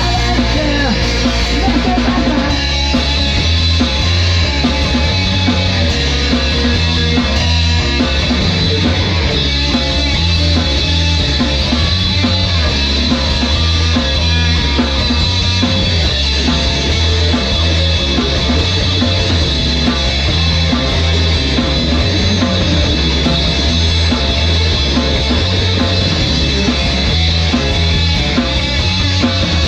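Loud rock music from a full band, with a bass line stepping between low notes in an even rhythm.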